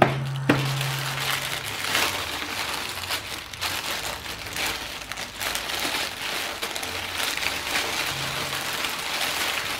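Black plastic mailing bag crinkling and rustling as it is pulled open by hand, a continuous run of crackles.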